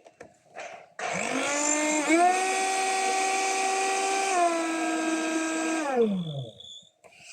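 Morgan MBL-402WG blender-grinder's motor switched on and whirring with a steady whine, rising in pitch about a second after it starts and dropping a little about halfway, then spinning down to a stop near the end.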